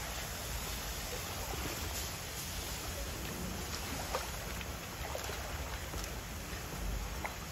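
Steady ambient hiss with a low rumble underneath and a few faint ticks; no sea lion calls.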